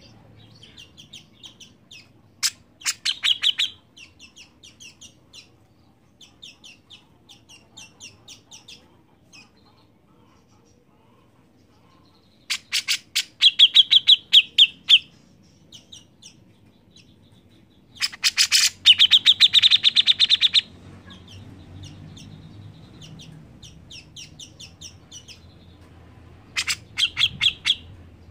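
Caged cucak jenggot (grey-cheeked bulbul) singing in loud bouts of rapid, chattering notes, four times, with softer runs of notes in between.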